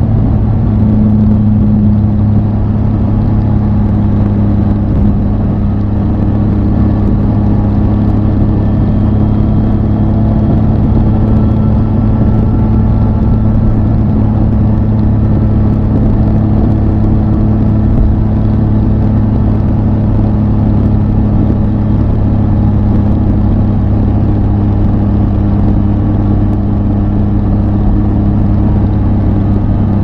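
Triumph Tiger 800 XCA's three-cylinder engine running at a steady speed while the motorcycle is ridden, its pitch holding nearly constant.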